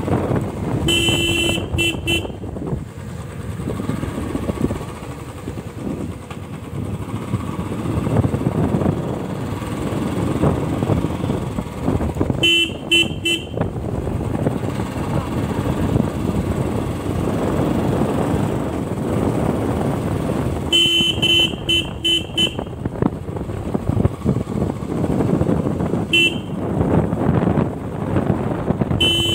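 Motorcycle riding along with steady engine and wind noise. Its horn is tapped in quick strings of short toots, five separate times.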